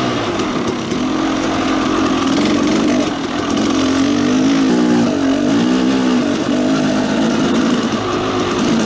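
Two-stroke dirt bike engine running under way on a rocky trail, its pitch rising and falling with the throttle, most clearly in the middle stretch.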